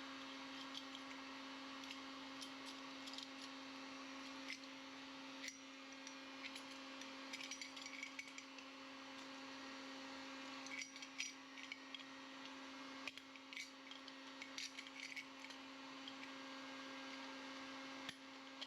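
Faint small clicks and light metallic scraping of a 3/8-inch cable connector being worked into the knockout hole of an electrical fixture box, a tight fit, over a steady low hum.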